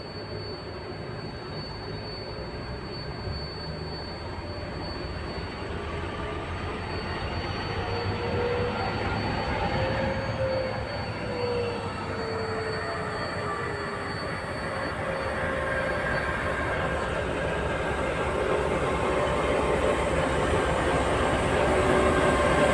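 BR 233 'Ludmilla' diesel locomotive hauling freight wagons, its engine running with a steady drone that grows steadily louder as it draws near and passes. A wavering whine rises and then falls near the middle.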